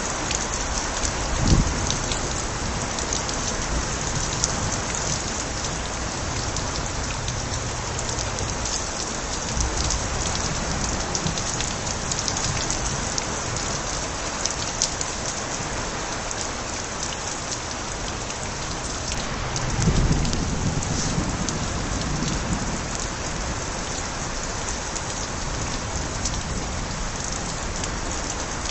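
Steady rain with water spilling from overflowing gutters, an even patter and splash. There is a brief low thump about a second and a half in and a low rumble about twenty seconds in.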